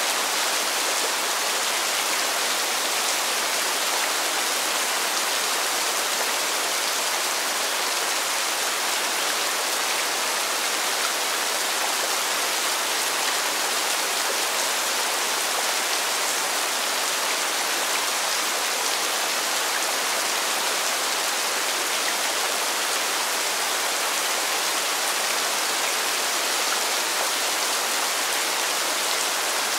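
Steady rain falling: an even, unbroken hiss of countless drops, bright and light, with little low rumble.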